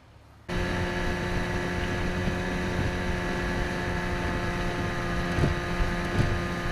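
Small fishing boat's outboard motor running steadily under way, a constant hum with wind and water noise, starting abruptly about half a second in.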